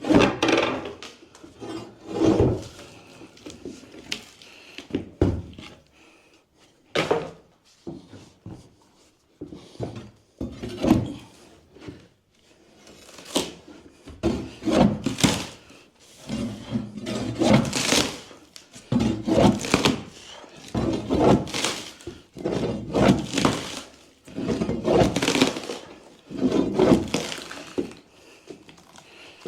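Old wooden floorboards being pried and broken loose by hand: a run of irregular wooden creaks, cracks and thunks every second or two.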